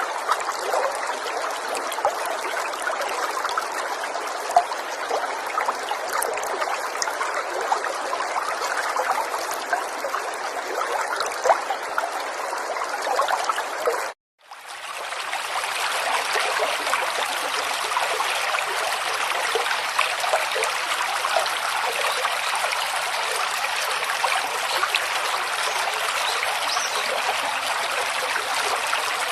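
River water running and trickling over stones, a steady babble dotted with small splashes. About halfway through it cuts out for a moment, then comes back fuller and lower-pitched.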